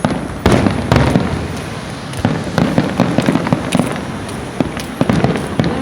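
Fireworks display going off: two strong bangs about half a second and a second in, then a rapid crackle of many smaller pops and reports.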